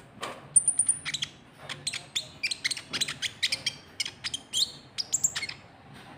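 A konin trotol bird singing a rapid, irregular series of sharp chirps and short whistles, with a thin high held whistle about half a second in.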